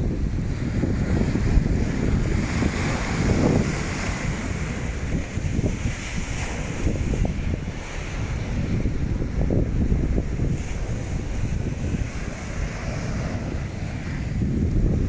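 Wind buffeting the microphone in heavy gusts, with waves washing on the shore underneath.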